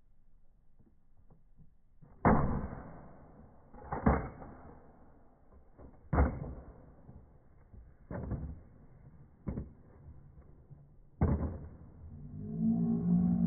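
A Nerf blaster firing: six sharp thumps roughly two seconds apart, each trailing off briefly, followed near the end by a low hum.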